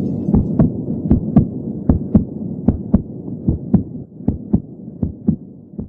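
Soundtrack pulse of paired low thumps like a heartbeat, about 78 beats a minute, over a low hum, fading out toward the end.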